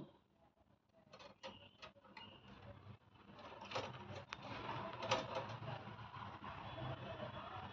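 A few sharp clicks and knocks, then from about three seconds in a steady mechanical running noise with a low hum, with more clicks over it.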